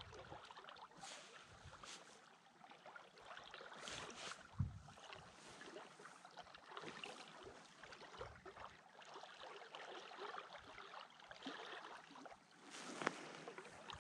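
Faint flowing river water with light wind buffeting the microphone. A short low thump about a third of the way in and a sharp click near the end.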